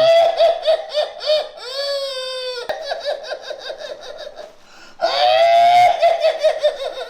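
A woman's shrill, high-pitched cackling laughter in rapid repeated pulses, broken twice by a long drawn-out high cry, about two seconds in and again at five. She is a patient in a trance, laughing in the voice of an old person that the healer addresses as a possessing spirit.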